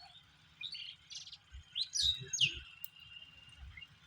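Small bird chirping: a string of short high calls, the loudest two about two seconds in, each sliding down in pitch.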